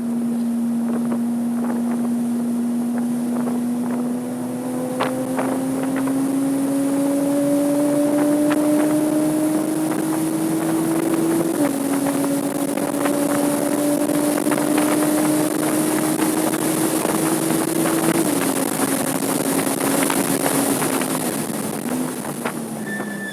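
Porsche 987.2 Cayman S's 3.4-litre flat-six pulling hard through the gears, its pitch climbing slowly and stepping down at an upshift about halfway through and again near the end, over steady wind noise.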